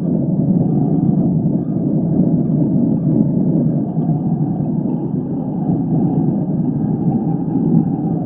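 Tornado sound effect: a steady, low wind rumble.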